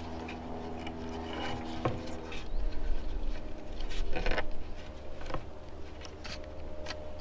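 Cord rustling and scraping as it is wound tight around two crossed wooden poles to lash them together, with scattered knocks and rubs of hands against the wood. A faint steady hum underlies the first two seconds.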